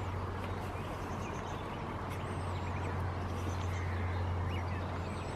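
Outdoor ambience: a steady low hum with a few faint, short high-pitched bird chirps.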